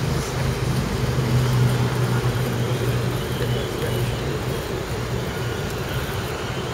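Steady low rumble of road traffic from the overpass above, with a faint high whine twice from the small electric motors and gearboxes of the RC crawler trucks.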